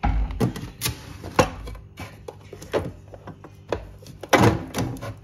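Plastic freezer drawer pulled open and frozen food containers and bags knocked and shifted as they are rummaged through: a string of irregular clicks and knocks, with a denser clatter near the end.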